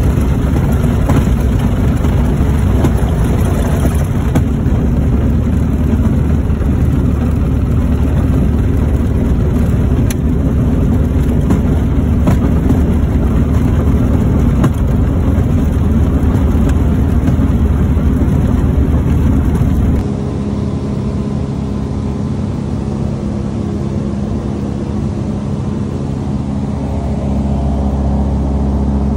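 A Tecnam P92 light aircraft's engine and propeller running loud through the cockpit during a roll along a dirt airstrip. About two-thirds of the way through, the sound cuts abruptly to a quieter, steady engine drone in flight.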